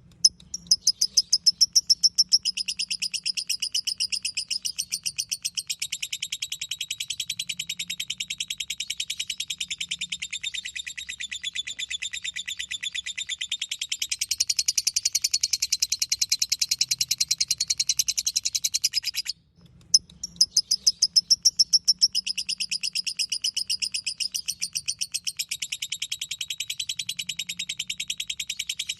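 Lovebird ngekek: a long unbroken run of rapid, shrill chattering notes. It breaks off abruptly about two-thirds of the way through and starts again within a second. Each run opens with its loudest notes.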